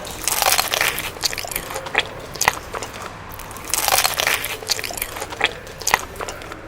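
Someone biting into and chewing crispy fried food, with loud crunches and crackles in two bouts.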